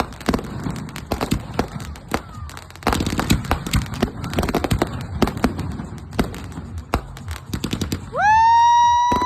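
Fireworks finale: many firework bangs and crackles in quick succession. About eight seconds in, a loud, steady whistling tone rises in pitch and then holds, louder than the bangs.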